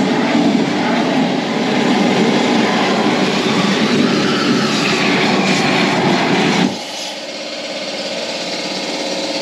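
Propane weed burner torch running with a loud, steady rush of flame as it reheats the cast-steel Dana 60 axle housing. The rush cuts off suddenly about two-thirds of the way in, leaving a quieter steady machine hum.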